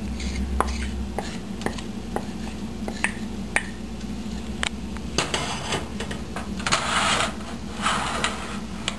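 Wooden spoon tapping against a plate and a nonstick frying pan as spices and coriander are knocked into the pan, with sharp taps scattered through. In the second half the spoon stirs grated cauliflower in the pan, making three longer scraping rushes.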